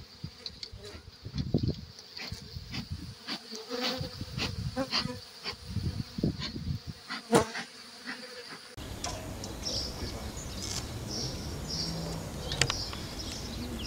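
Many honeybees buzzing as they fly around close by, with short knocks and low rumbles from the phone being handled. About nine seconds in the sound changes to a steadier, more even buzzing.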